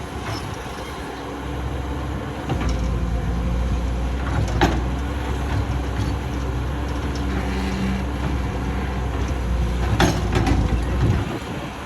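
Heavy construction machinery engine running with a deep, steady rumble that grows louder about two and a half seconds in and drops back near the end. Two sharp knocks stand out, about four and a half seconds in and again around ten seconds.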